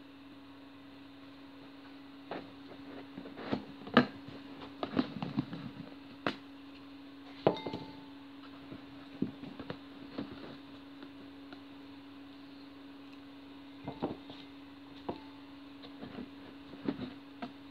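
Scattered clicks and knocks of things being handled, irregular and busiest in the first half, over a steady low hum.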